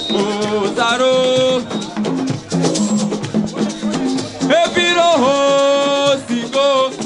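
A song: a singer holds two long, wavering notes over a steady beat of shaker-like percussion and a bass line.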